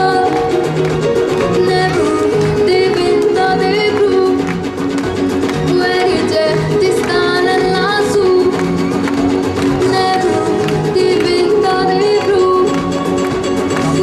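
A young girl singing live into a handheld microphone, with held and gliding notes, over a backing track with Latin-style guitar and a regular low beat.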